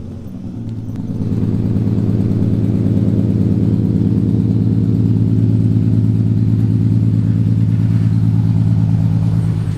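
A car engine running steadily close by, swelling over the first second and then holding an even hum.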